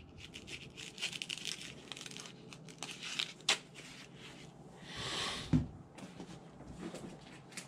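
Handling noise from a sheathed knife and a nylon backpack: rustling fabric and light clicks, with a sharp click about three and a half seconds in and a soft thump a little past halfway as the knife is set down on the table.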